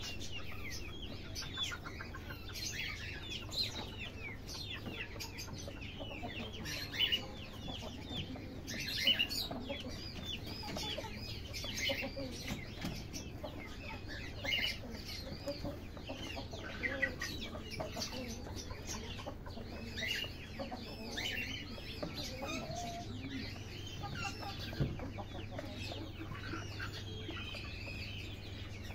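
Backyard chickens clucking amid a dense chatter of short, high chirping calls, with a few louder calls standing out now and then.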